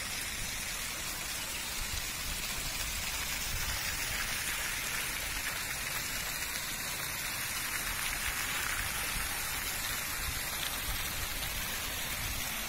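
Ornamental garden fountain jets falling into a shallow pool: a steady, rain-like splashing hiss.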